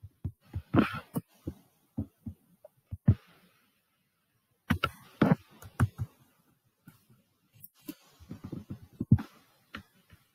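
Computer keyboard keys and mouse clicks: irregular short taps, with a pause of about a second and a half near the middle and a quick run of taps near the end.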